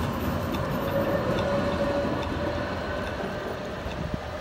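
Electric tram running past close by on the junction's curved tracks, with a rumble and a steady whine that fade as it moves away.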